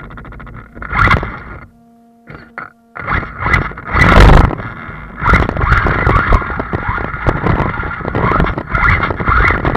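Arrma Talion RC car driving over rough, rocky ground: its brushless motor and drivetrain whine steadily amid rattling and knocking from the bumps. It briefly drops to a faint steady hum around two seconds in, then drives hard again, with the loudest jolt about four seconds in.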